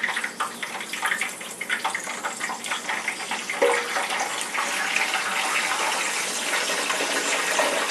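French fries frying in hot oil in a Copper Chef pan: a steady sizzle with crackling.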